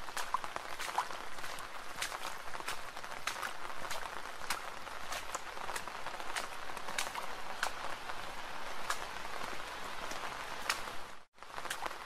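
Soft, steady rain with many close, distinct drops ticking sharply over the hiss. The sound cuts out for an instant about eleven seconds in, then carries on.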